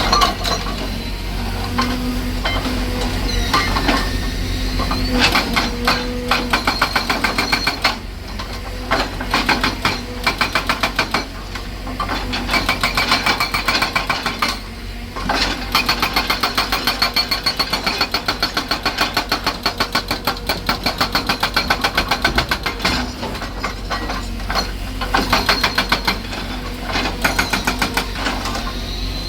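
Excavator-mounted hydraulic breaker hammering, with rapid evenly spaced strokes in repeated bursts and short pauses between them, over the excavator's engine running steadily.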